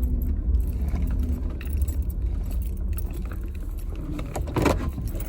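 Low, steady rumble of a car idling, heard from inside, with a metallic jingling rattle and scattered clicks. A louder rustling clatter comes about four and a half seconds in.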